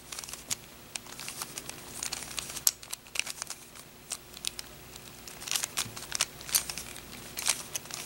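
Plastic Rubik's Cube being twisted by hand, its layers clicking and rattling as they turn in two quick flurries of moves. These are the turns of the beginner's-method middle-layer edge insertion algorithm.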